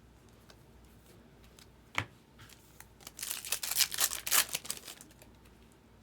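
Trading-card pack wrapper being torn open and crinkled, in a dense crackly run of about two seconds, after a single sharp knock about two seconds in.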